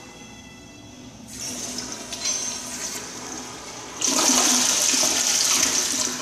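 Zurn 1.6 gpf toilet flushing: a hiss of water begins about a second in, then a loud rush of water surges into the bowl about four seconds in and tapers off near the end.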